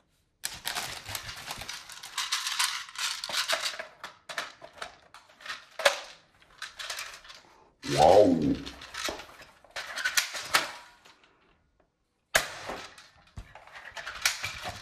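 Handling noise of a plastic toy rifle: repeated clicks and rattles of plastic parts and crinkling of a plastic sheet, in irregular spells with short pauses. A brief voice, like a short exclamation, a little past halfway.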